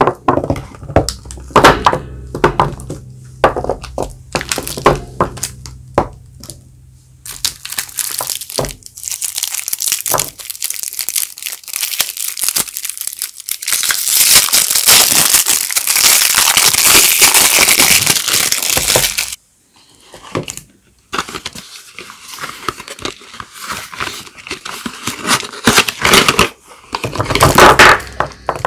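Soap bars being unwrapped by hand: the wrappers crinkle, rustle and tear, in long loud stretches of crackling broken by short pauses and sharp clicks.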